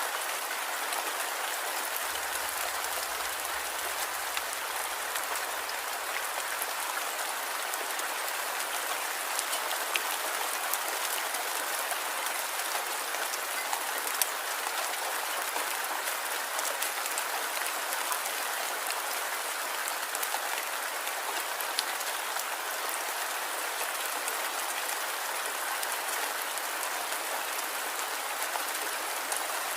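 Light rain falling steadily: an even hiss of rain with scattered individual drop ticks.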